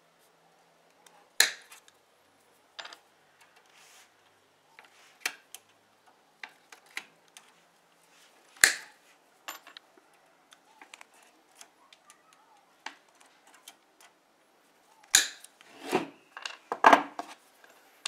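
Galvanized steel wire being bent and cut with small pliers and side cutters to form hog rings: three sharp snaps of the cutters a few seconds apart, with light clicks of the tools and wire between. A burst of louder clinks and clatter near the end as the metal tools are handled on the bench.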